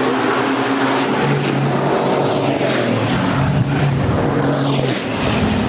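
Race truck engine running hard at speed down the straight, its pitch dropping as it goes past.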